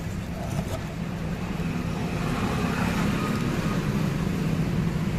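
Steady low hum of a running engine, slowly getting louder.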